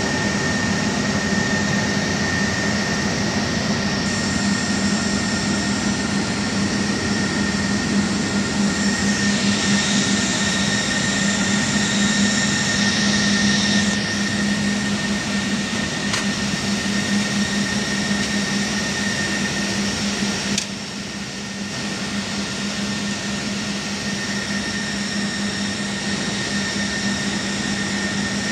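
Steady whir of server-room cooling fans and air conditioning, with a low hum and a high whine held throughout. About 21 seconds in there is a brief click, after which it is slightly quieter for a moment.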